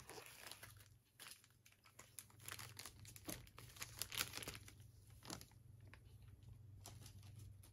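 Faint crinkling and rustling of a thin clear plastic bag as it is pulled off a diecast airliner model, a scatter of short crackles that thins out after about five seconds, over a steady low hum.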